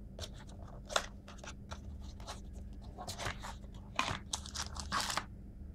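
Small cardboard box and its packaging wrapper being handled: a run of short clicks and scrapes, then crinkling rustles in the second half that stop suddenly near the end.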